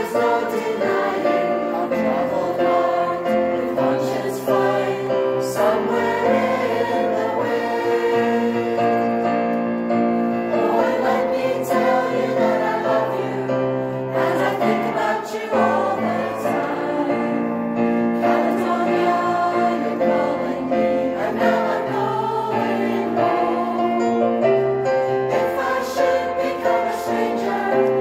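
Mixed choir of men and women singing together in sustained chords, accompanied by an electronic keyboard.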